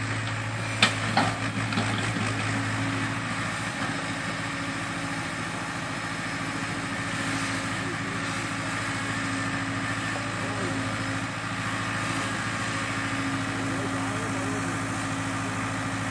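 Hyundai crawler excavator's diesel engine running at a steady speed while the machine works, with a few sharp knocks about a second in.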